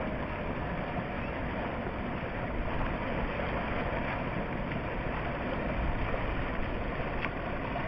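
Steady rush of fast whitewater in a kayaking channel, a constant noisy roar of moving water.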